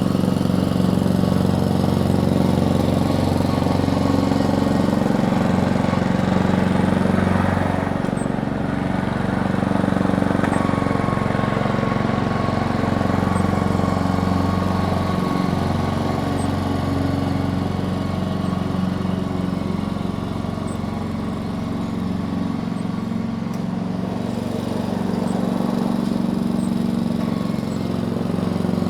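Lawn mower engine running steadily with a continuous hum, its level swelling and dipping gently a couple of times.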